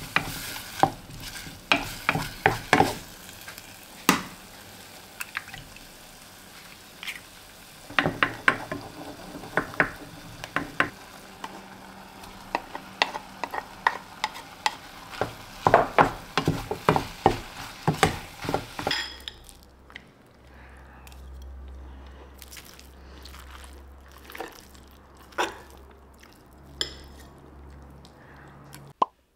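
A wooden spatula stirs and scrapes kimchi, meat and rice in a small nonstick pan over a gas flame, with rapid knocks and clacks over a light frying sizzle. About two-thirds of the way through the stirring stops, leaving a quiet room with a low hum and a few scattered light clicks.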